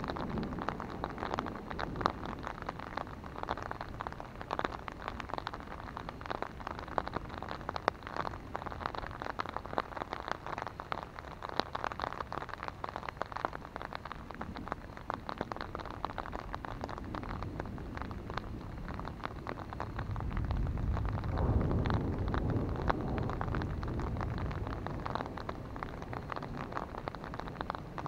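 Rain hitting a handheld umbrella, a steady rush of many quick drop hits on the fabric. About two-thirds of the way through, a low rumble of thunder swells and then dies away.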